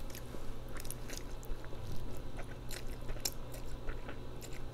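A person eating noodles: chewing and slurping them in, with many short clicking mouth sounds scattered throughout.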